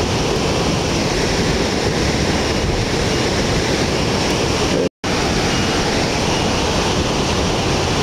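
Heavy storm surf from a typhoon swell breaking on the beach, a steady rush of waves with wind on the microphone. The sound cuts out completely for a split second about five seconds in.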